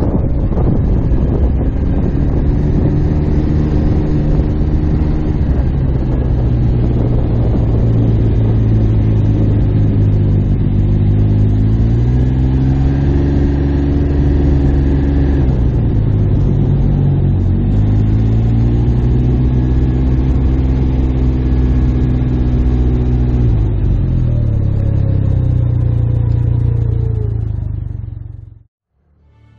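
Motorcycle engine running at low speed, its pitch rising and falling a few times with the throttle, over wind noise. The sound fades out and stops near the end.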